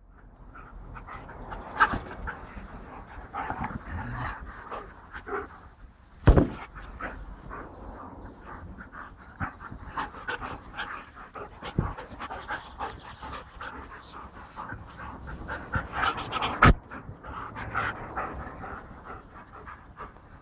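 Shepherd dogs panting rapidly close by, with four sharp knocks spread through.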